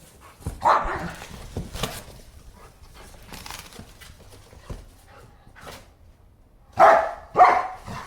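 German Shepherd barking in short bursts while shredding a cardboard box, with a couple of barks early on and two loud barks close together near the end; short crackles of cardboard being torn fall between the barks.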